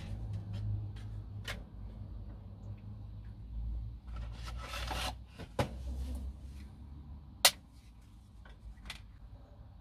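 Dry lasagna sheets being handled: rustling and scraping as stiff pasta sheets are pulled from their cardboard box and laid into a ceramic dish, with scattered light clicks and one loud sharp crack about three quarters of the way through.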